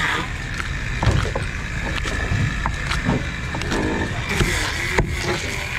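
A cleaver knocking and scraping on a wooden cutting board as a small fish is cut open and gutted: a few short sharp knocks at irregular intervals over a steady low rumble.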